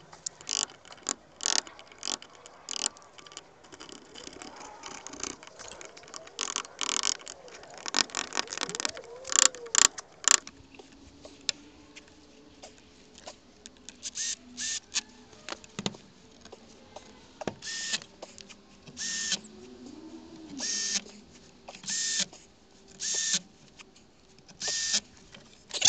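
Tool noise of fixing a wooden strip to a shed's wooden door frame: a busy run of knocks and scrapes, then about six short bursts roughly a second and a half apart near the end.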